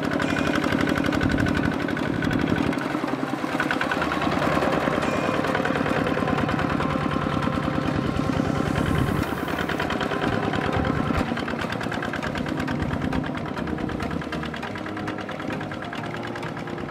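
Kubota RT 140 walking tractor's single-cylinder diesel engine running steadily under load while plowing a wet rice paddy, with a rapid, even knock of firing strokes. It gets a little quieter near the end.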